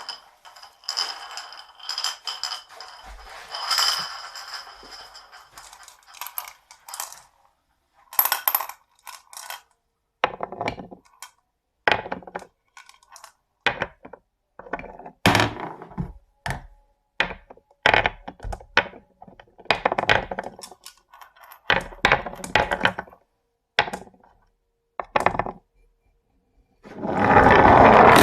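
Glass marbles rolling and clattering down a wooden HABA slope marble run. A steady rattle with a faint ring for the first several seconds gives way to a long string of separate clicks and knocks as marbles drop and hit the track, and a louder, dense rattle comes near the end.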